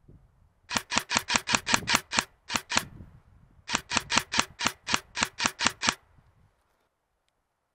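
Airsoft gun firing rapid shots, about six or seven a second, in three strings: about ten shots, a pause, two shots, then about a dozen more.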